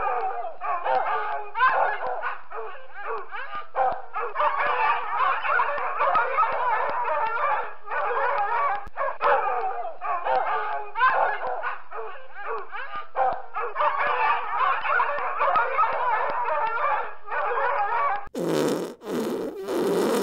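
Several dogs barking and yelping together, with short breaks, then near the end three loud, deeper fart noises.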